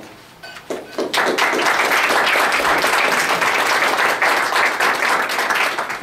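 Audience applauding: a few scattered claps, then dense steady applause from about a second in until near the end.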